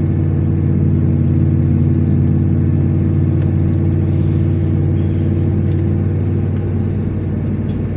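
Steady low drone of a car's engine and tyres on the road, heard from inside the cabin while driving at a constant pace.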